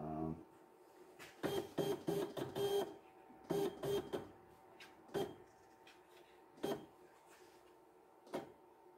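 CNC router's stepper-motor axis drives whining in short jogs: a quick run of bursts about one and a half seconds in, another around four seconds, then single brief nudges about every second and a half. The bit is being stepped down and across to touch off on cardstock and set the zero point.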